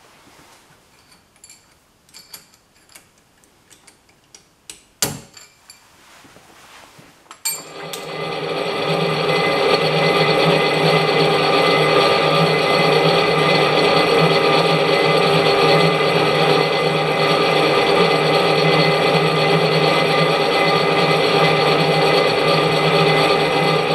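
Drill press starting about seven and a half seconds in and running steadily with a whine of several fixed tones as its boring head cuts into a metal workpiece. Before that, small metal clicks and a sharp knock from work at the spindle.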